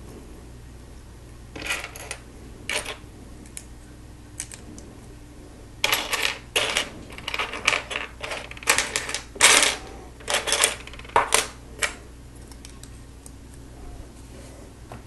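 Loose plastic Lego pieces clicking and clattering as they are handled and sorted: a couple of short rattles near two to three seconds in, then a longer run of clatter from about six to twelve seconds.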